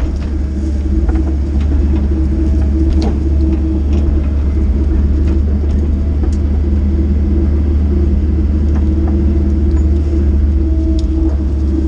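Excavator's diesel engine running steadily with a deep, even hum while the machine works clearing brush, with a few faint clicks.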